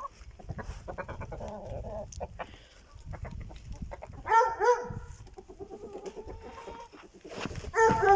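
Laying hens clucking as they come out of their coop, with a loud call about four seconds in, a long drawn-out call after it, and another loud call near the end.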